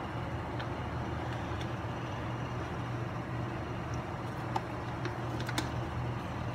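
Steady low mechanical hum with a few faint clicks about four and a half and five and a half seconds in.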